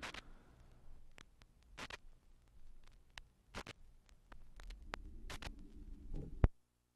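Faint scattered clicks and crackle on a recording after the music has faded, with a faint low hum building toward the end. A single loud thump comes about six and a half seconds in, and the sound cuts off at once.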